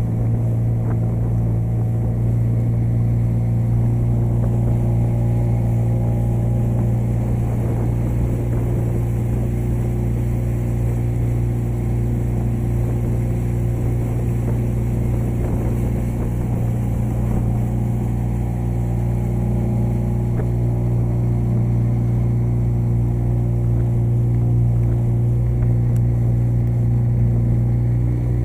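Small motorboat's engine running steadily under way, a constant low hum with even overtones.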